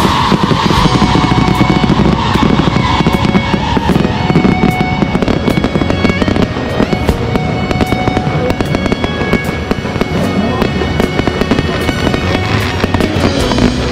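Aerial fireworks show with gold crackling stars bursting one after another: a dense, unbroken run of pops and crackles, with music playing underneath.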